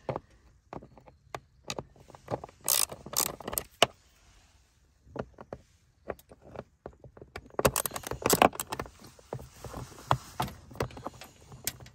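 Irregular clicks and knocks of a screwdriver working the screws out of a plastic air filter housing in a car's engine bay, with plastic rattling as the tool and box are handled. The clicks come in two busier stretches, with a quieter gap in between.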